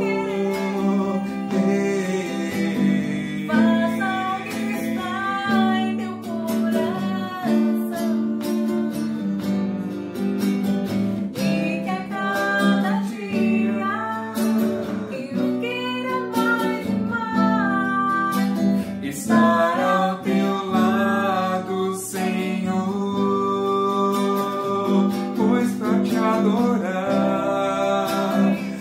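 A woman and a man singing together in Portuguese, accompanied by a nylon-string classical guitar.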